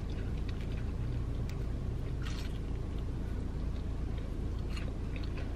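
Faint chewing of a fried cheese curd dipped in marinara, a few soft mouth clicks over a steady low hum inside a car's cabin.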